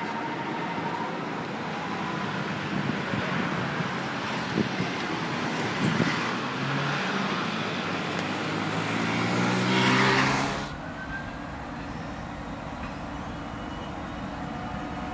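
Traffic at a railway level crossing: a commuter train goes through, then road vehicles cross, one engine rising in pitch as it pulls away. About ten seconds in the sound cuts off suddenly to a quieter steady hum.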